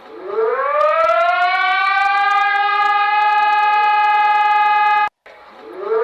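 Brazilian emergency alert siren, played back from a video: it winds up from a low pitch to a steady high tone, holds it for about four seconds, cuts off abruptly about five seconds in, then starts winding up again.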